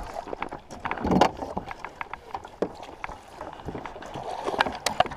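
A hooked largemouth bass being landed beside a fishing kayak: irregular splashing and knocks of gear against the hull. The loudest bursts come about a second in and near the end.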